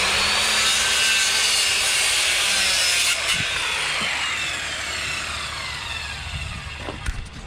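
Electric power saw cutting across a thin wooden fence picket, then the blade winding down after the trigger is released, its whine falling in pitch over about four seconds. A couple of light knocks near the end.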